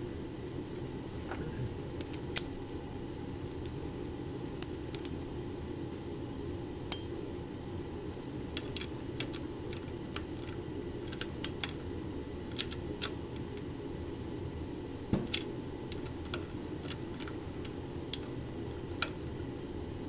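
Light, irregular metal clicks and clinks as small nuts are turned by hand onto the diode-pack studs inside a Delco alternator housing, over a steady low hum.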